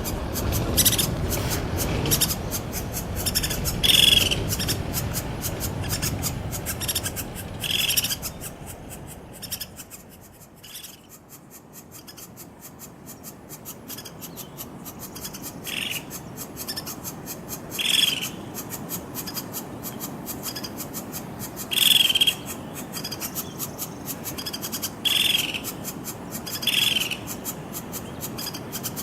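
Crimson-mantled woodpecker giving short, sharp calls, repeated about every two to four seconds, over a continuous fine crackling.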